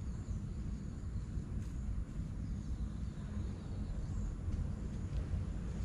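Outdoor ambience: a steady low rumble with a few faint, high bird chirps now and then.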